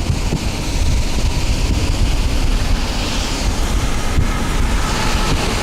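Storm wind buffeting the microphone: a heavy, steady low rumble with a hiss of blowing wind over it.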